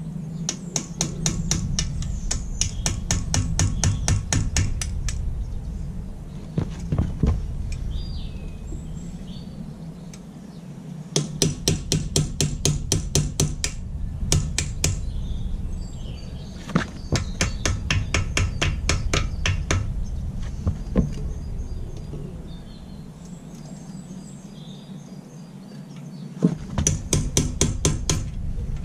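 Hammer striking the rusty iron frame of an old trolley in fast runs of sharp metallic blows, about five a second. The blows come in several separate bursts with short pauses between, as rust and old muck are knocked off the metal.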